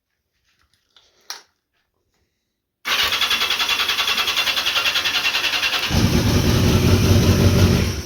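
A small click, then the 1982 Yamaha XJ650's electric starter cranking the engine in a fast, even pulse for about five seconds, growing deeper near the end, and stopping without the engine running on. With the added ground wire removed, the old ground cable and weak battery are left to carry the starter load, which the owner found starves the ignition of voltage.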